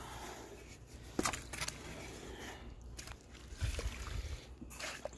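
Shovel working in wet clay mud: a few sharp scrapes and knocks amid squelching, over a low steady rumble.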